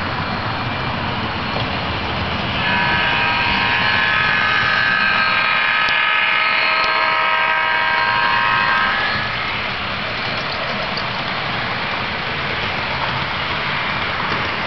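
Model train running on its track close by, a steady rushing noise. About three seconds in, a louder steady whine of several pitches comes in over it and fades out around nine seconds.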